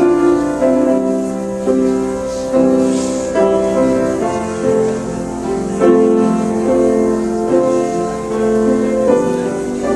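Piano music: a flowing run of chords and melody notes that change every half second to a second.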